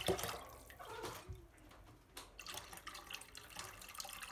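Lemon-peel-infused alcohol being poured from a plastic bottle into a pot of sugar syrup: a fairly quiet, uneven stream of liquid splashing into liquid.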